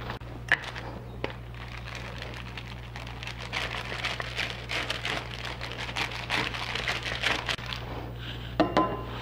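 Metal rolling pin pushed back and forth over dough sandwiched between sheets of baking paper: a continuous rustle and crinkle of the paper with scattered light clicks, rolling the dough out thin.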